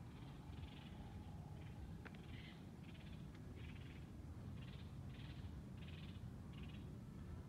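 Short, buzzy animal calls repeat about twice a second over a faint, steady low rumble of background noise.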